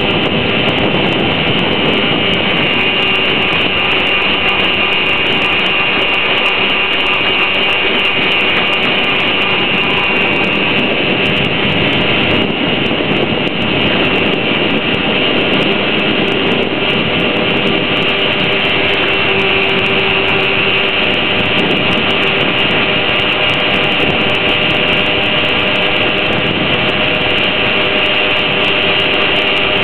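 Traxxas Villain RC boat's electric motor running steadily at speed with a constant whine, heard from on board the boat together with the rush of water along the hull.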